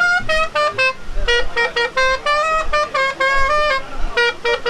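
Music: a melody of short, quickly repeated notes at steady pitches that step up and down, on a bright instrument with a reedy tone.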